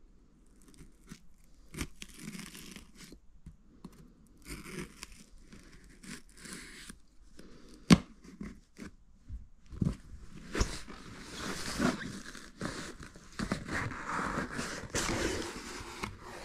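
Box packaging being cut and torn open by hand: intermittent scraping, tearing and crinkling, with a sharp knock about eight seconds in, then busier, more continuous tearing in the second half.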